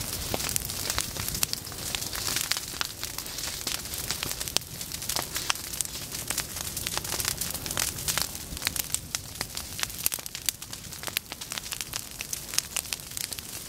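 A prairie fire burning through dry tall forbs such as goldenrod and grass, crackling constantly with many sharp, irregular snaps and pops over a low rumble.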